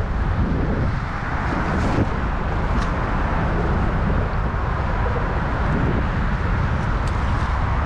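Wind buffeting the camera microphone in a steady low rumble, with choppy water washing around a small boat's hull and a few faint ticks.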